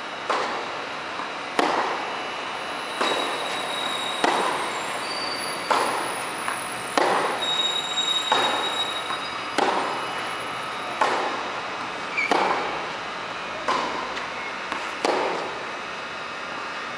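Tennis rally on a clay court: a racket strikes the ball about every second and a half, the two players' shots alternating, each hit ringing with echo in the covered hall. Softer ball bounces fall between some of the hits.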